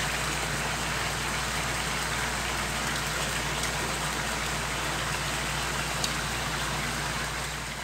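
Chicken and tomatoes simmering in oil and juices in a karahi, a steady sizzle with a low hum underneath. A few faint clicks of metal tongs in the pan as the tomato skins are peeled.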